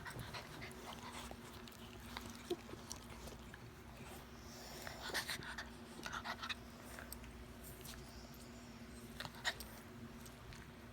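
A dog making small sounds close by: scattered soft clicks and a few short noisy bursts, clustered about four to six seconds in and again near the end, over a steady low hum.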